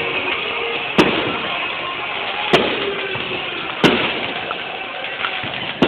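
Aerial fireworks bursting overhead: four sharp bangs about one to two seconds apart over steady background noise.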